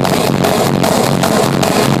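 Hardstyle electronic dance music with a steady, fast beat.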